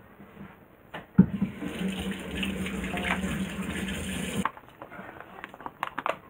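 Water running from a kitchen tap into a stainless sink for about three seconds, starting just after a knock and cutting off suddenly. It is followed by faint light ticks and rustles.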